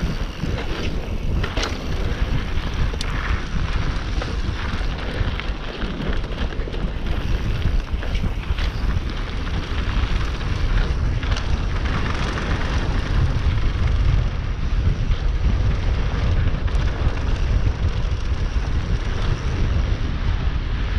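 Wind noise on the microphone over the rumble of mountain bike tyres rolling fast on a dry dirt trail, with scattered clicks and rattles from the bike.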